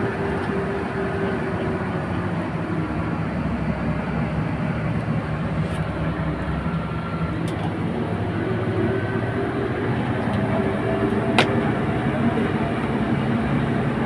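Coach bus cabin noise while riding: steady engine hum and road rumble, the engine note shifting in pitch. A single sharp click about eleven seconds in.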